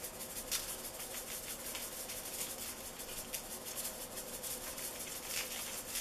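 Seasoning salt shaken from a shaker over a raw beef chuck roast: a fast, steady run of light rattling ticks as the granules shake out.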